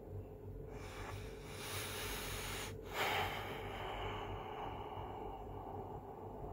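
A person's loud breathing close to the microphone: a long drawn-in breath, a brief pause, then a forceful breath out that trails off, over a steady low hum.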